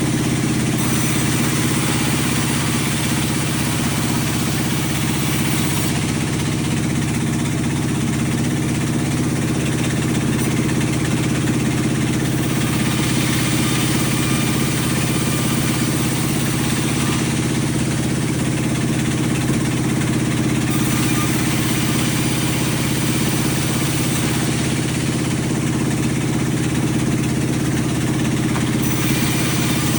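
Sawmill machinery running: a steady engine drone with a constant low hum and a hissing upper layer that shifts in level every several seconds.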